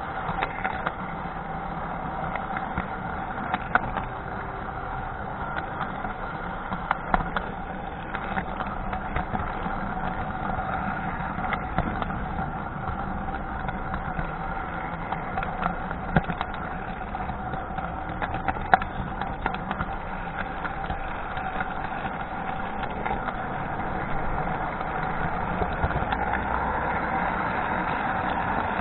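Model train running steadily along the track: a constant whirring hum from the locomotive's electric motor and the wheels, picked up from a car riding on the train, with irregular sharp clicks as the wheels cross rail joints and turnouts.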